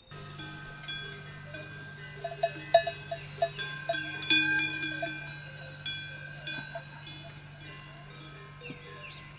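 Metal bells clanking and ringing irregularly, like cowbells on moving livestock, busiest and loudest from about two to five seconds in, over a steady low hum.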